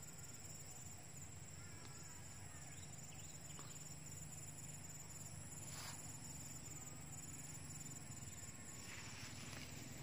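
Rural outdoor ambience: insects chirring in a high, fast-pulsing steady trill, over a low steady hum, with a few faint rustles and clicks near the end.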